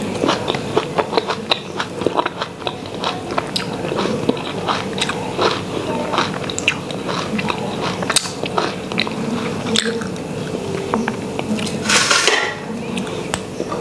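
Close-up mouth sounds of a person chewing a mouthful of rice and curry eaten by hand: irregular wet clicks and smacks throughout. A short, louder rush of noise comes about twelve seconds in.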